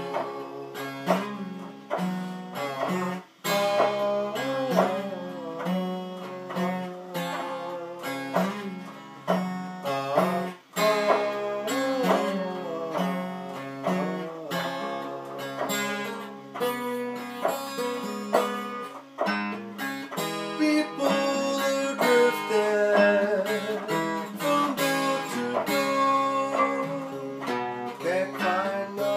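Acoustic guitar playing a fingerpicked blues passage: a repeated low bass note under quicker treble notes, several of them bent in pitch.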